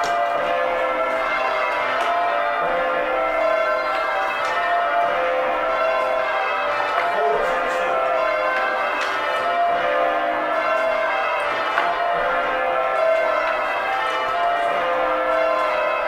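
Ring of John Taylor & Co. church bells cast in 1935, rung full-circle in call changes on the back eight. The bells strike one after another in an even, continuous rhythm, their tones overlapping and ringing on.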